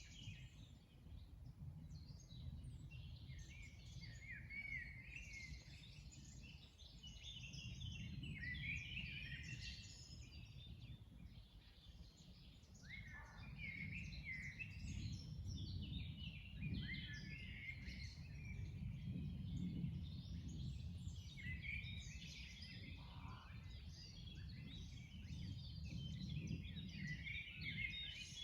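Many songbirds singing at once, a dense chorus of chirps and trills, over a low steady rumble of outdoor background noise.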